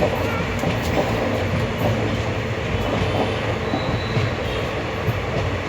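Running noise inside a moving ICF passenger coach: a steady rumble of the wheels on the rails with faint clicks over the track.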